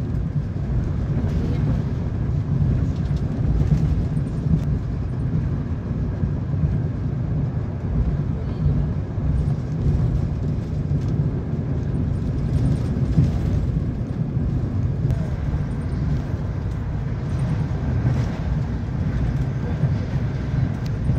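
Egyptian National Railways passenger train running, heard from inside the coach: a steady low rumble of the carriage and its wheels on the rails.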